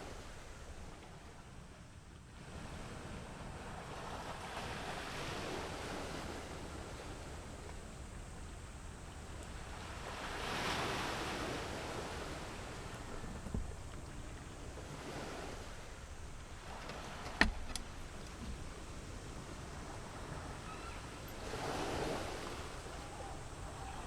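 Sea waves washing onto the shore, swelling and fading every few seconds, with one sharp click about seventeen seconds in.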